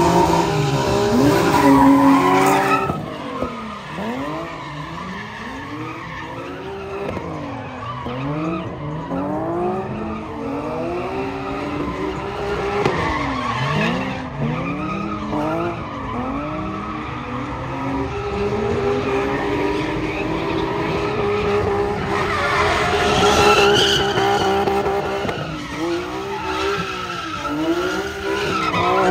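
Drift car's engine revving hard, its pitch climbing and dropping again and again as the car slides through a drift run, with a longer held high rev partway through. It is loudest at the start and again about three quarters of the way in.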